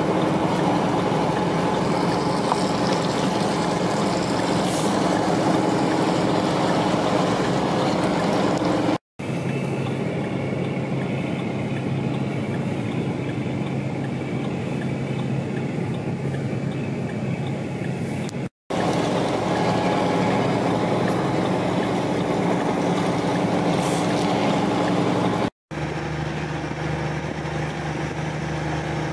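Heavy diesel truck engines idling: a steady low hum over road and outdoor noise, broken by three brief silent gaps where the footage cuts.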